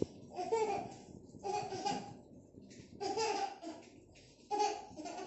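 A young child laughing in four short, high-pitched bursts, about one every second and a half.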